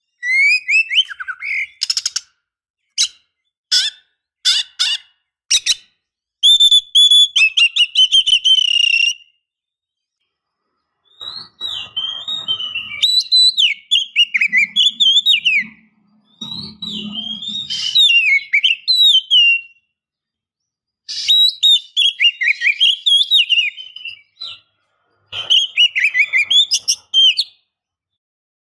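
Female oriental magpie-robin (kacer) calling: sharp chips and short whistled notes, a fast trill a few seconds in, then varied warbling phrases broken by short pauses. The uploader presents it as a female in breeding condition calling to males.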